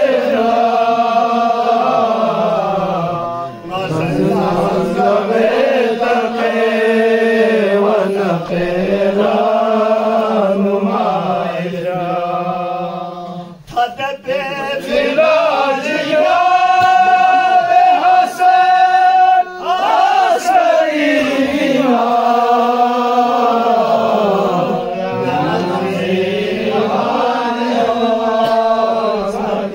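Men chanting a qasida unaccompanied, voices together in long drawn-out melodic phrases with held notes, a short break about 14 seconds in.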